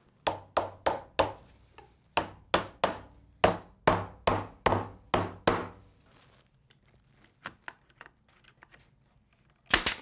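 Claw hammer tapping the joints of a wooden wine-bottle rack together: about fourteen sharp knocks on wood in quick runs over the first six seconds, then a few fainter knocks. Near the end, two sharp cracks in quick succession from a pneumatic brad nailer.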